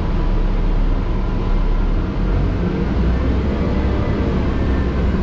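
Steady engine and road rumble of a Walt Disney World transit bus, heard from inside the passenger cabin as it drives.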